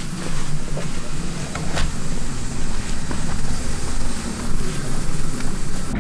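Car driving: a steady rumble of engine and road noise.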